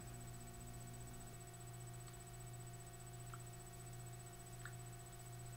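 Quiet room tone: a steady electrical hum with a faint high whine, and three faint short ticks spread across the stretch.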